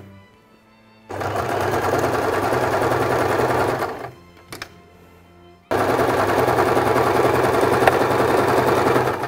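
RE 1306 domestic electric sewing machine stitching velour patchwork strips, in two steady runs of about three seconds each with a short stop about four seconds in.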